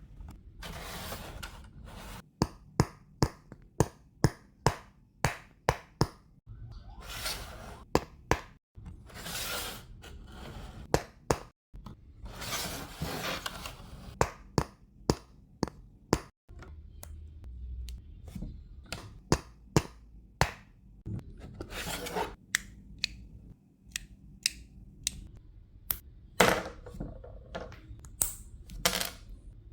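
Plastic LEGO pieces clicking and clattering as they are handled and snapped together: many quick, sharp clicks, broken by several stretches of rustling lasting a second or two.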